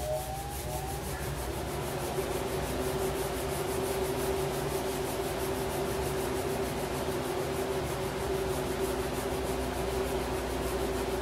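Fingers rubbing a freshly applied vinyl decal onto a Can-Am Ryker's side panel, a continuous rubbing that presses the adhesive down. A steady hum runs underneath.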